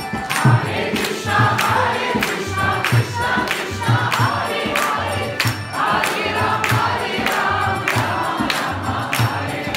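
A group of voices singing a Bengali Vaishnava devotional song, with a steady percussion beat of about two strikes a second.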